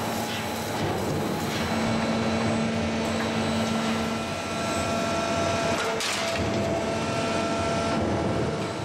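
Sheet-metal rollforming line running, its motor-driven roll stands forming steel strip: a dense, steady mechanical noise with a few held hum tones, and a single sharp knock about six seconds in.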